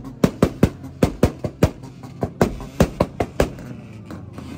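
A modified hatchback's exhaust banging and popping, sharp bangs about four to five a second over the engine's low running, stopping about three and a half seconds in.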